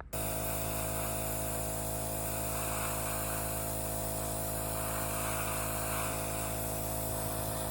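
Mini airbrush compressor switching on and running with a steady hum and a hiss of air.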